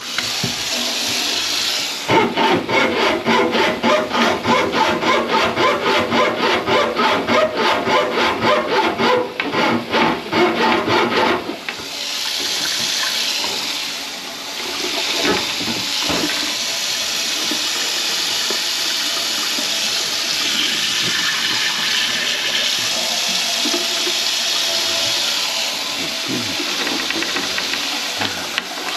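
Kitchen faucet running water into a sink whose drain line is clogged with grease. For the first ten seconds or so the rush pulses rhythmically, about four times a second, then it settles into a steady flow.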